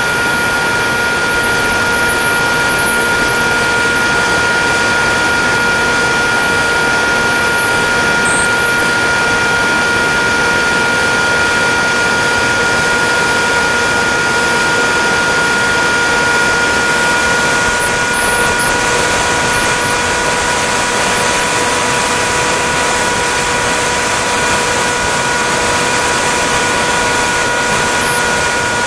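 Electric motor and propeller of a Ritewing Drak flying wing, heard from its onboard camera in flight: a steady motor whine of several tones over rushing airflow. About two-thirds of the way through, a very high thin whine steps up in pitch and stays there.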